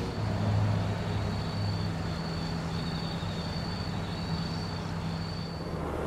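Toyota Hiace van's engine idling with a steady low hum, a little louder in the first second. Above it is a faint, high, pulsing trill.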